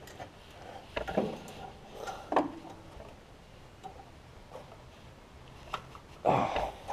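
Scattered clicks and light metal knocks of a wrench working loose the bottom bolt of a Kawasaki engine's ignition coil, with a louder scraping rustle near the end.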